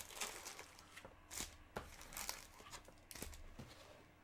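Foil trading-card pack wrapper crinkling and tearing open as the cards are handled: a quiet string of short rustles and crackles.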